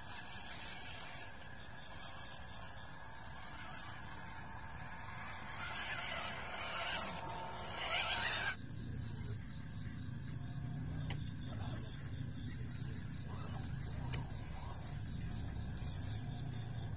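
Small electric motors and gearboxes of RC scale crawler trucks whirring as they drive over dirt and grass. The whir grows louder from about six seconds in and cuts off suddenly just past the middle, after which a steadier, lower running sound continues.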